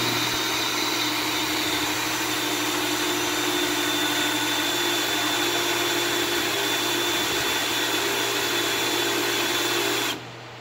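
Cordless drill boring a hole through a steel wing stand, running steadily at speed with a constant high whine, then stopping abruptly near the end.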